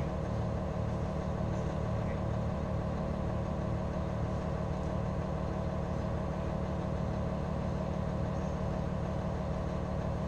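An engine idling steadily: a low, even drone that does not change.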